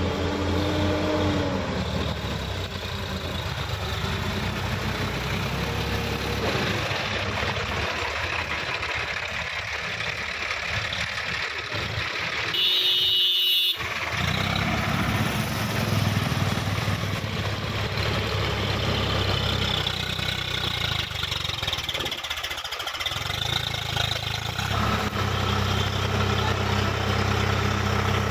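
Diesel tractor engines running steadily, first the Sonalika DI 50 RX and then the Swaraj 855 FE's three-cylinder diesel as it pulls up a muddy bank. The engine note breaks off briefly about halfway through, and is stronger and steadier near the end.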